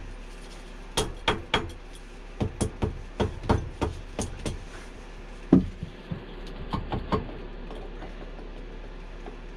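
Mallet tapping repeatedly on the cylinder of a 1988 Yamaha Moto 4 YFM225 ATV engine during top-end disassembly, in quick runs of sharp knocks, with one harder blow a little past halfway and a few lighter taps after it.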